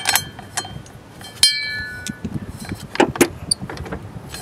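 Steel bolts clinking and knocking as they are handled and pushed into the driveshaft's drive coupling by hand. There is a sharp metallic clink with a short ring about a second and a half in, and a few knocks around three seconds.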